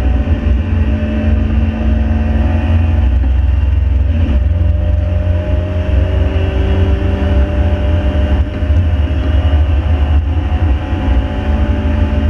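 A Ford Fiesta's 1.7 Puma four-cylinder engine running under way over a heavy, steady rumble. Its engine note steps down in pitch about four seconds in and holds steady at the lower note.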